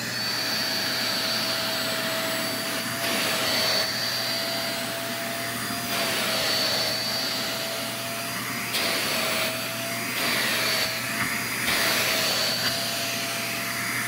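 Philco Ciclone Force handheld vacuum cleaner running, a steady high motor whine over a rush of air, its pitch rising briefly as it spins up at the start. The sound shifts several times as the nozzle is worked along the sofa upholstery.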